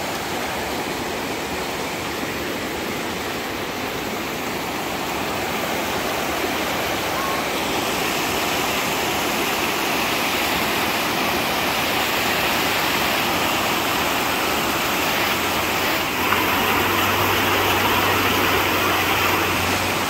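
Water rushing and splashing in shallow white-water rapids over flat rock slabs: a steady, dense rush that grows louder about halfway through.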